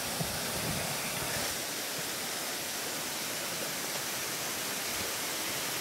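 Steady rush of falling water, an even unbroken roar with no pauses.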